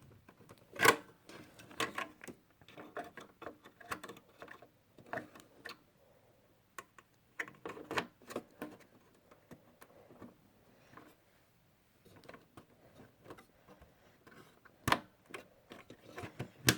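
Scattered plastic clicks and knocks as a RAM stick is handled and pushed into a desktop motherboard's memory slot and its white retention clips are snapped shut. The sharpest clicks come about a second in and again near the end.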